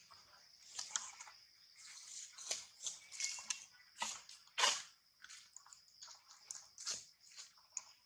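Irregular crunching and crackling as a long-tailed macaque bites and handles a green lotus seed pod, loudest about halfway through. A steady high-pitched hum runs underneath.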